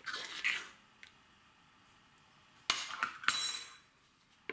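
A metal spoon stirring and scraping in a cast-iron pot of tomato juice, then two sharp clinks about three seconds in, the second with a brief high ring.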